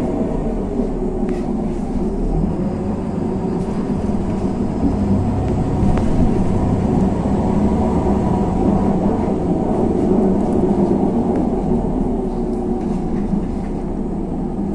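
Interior sound of a LiAZ 6213.22 articulated city bus underway: steady engine and road noise with a low rumble, and a few faint rattles and clicks.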